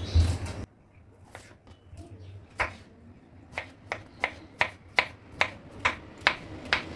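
Kitchen knife slicing a tomato on a wooden cutting board. After a short louder noise at the start come a few scattered knocks, then a steady run of knife taps on the board at two to three a second.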